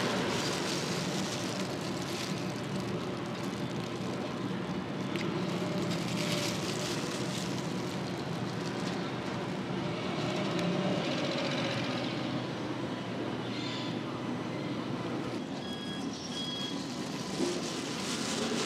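Steady low engine-like hum over a background of noise, with a few short faint high beeps near the end.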